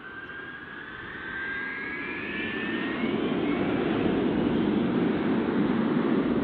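B-52 Stratofortress's eight jet engines at takeoff power as the bomber rolls and lifts off: a rising whine over a deep jet roar that swells about three seconds in and then holds loud.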